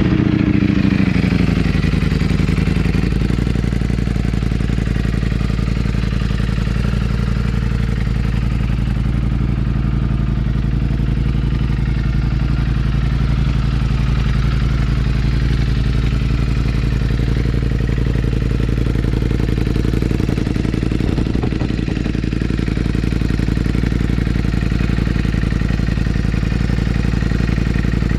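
2023 Ducati Panigale V4's V4 engine running through a full Akrapovic exhaust system just after starting. The revs drop over the first few seconds, then it settles into a steady idle.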